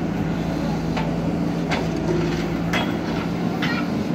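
Diesel engine of an earthmoving machine running steadily, with a few sharp metallic knocks and scrapes over it.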